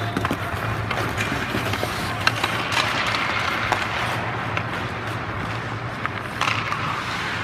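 Ice hockey skates scraping and carving on rink ice, with scattered sharp clicks of sticks and puck and a brighter skate scrape about six and a half seconds in, over a steady low hum.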